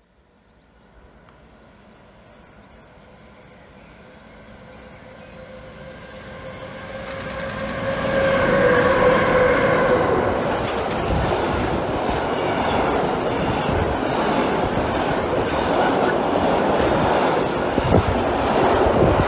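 Freight train approaching and passing close by. A steady tone from the head of the train grows louder over the first several seconds and drops slightly in pitch as it passes, about nine seconds in. Then comes a continuous rumble with rhythmic wheel clatter from the trailer-carrying pocket wagons rolling past.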